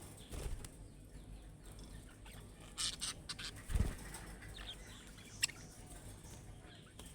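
Budgerigars chirping in short, scattered calls, with wing flutters and a few sharp clicks; a low thump a little before four seconds in is the loudest sound.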